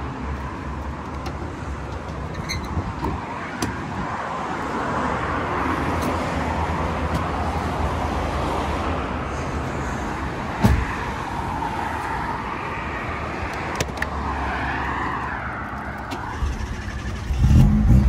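Tofaş Doğan SLX car running, with a steady mix of engine and road noise and a single sharp knock about two-thirds of the way through. Near the end a louder, deeper sound comes in.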